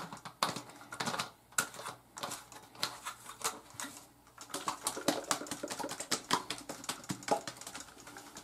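Plastic spray bottle and its white trigger-sprayer top being handled and fitted together: a run of irregular light clicks and taps.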